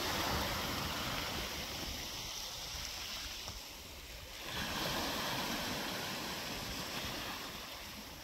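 Sea waves washing onto a stony shore: a steady rush of surf that eases off and swells again about halfway through.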